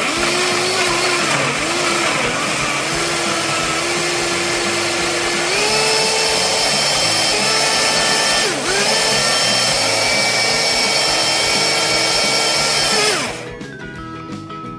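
Countertop blender running on high, liquefying chunky ingredients. Its motor whine sags and recovers as chunks hit the blades, climbs in pitch about five and a half seconds in as the mix smooths out, dips briefly near nine seconds, and cuts off about a second and a half before the end.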